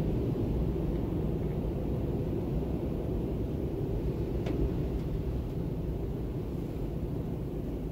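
Storm wind blowing in a steady, deep rumble, with a faint click about four and a half seconds in.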